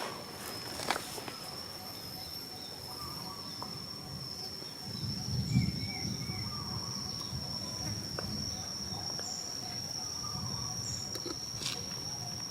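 Steady high-pitched drone of insects, holding one pitch throughout, with scattered small clicks and a louder low thump about five and a half seconds in.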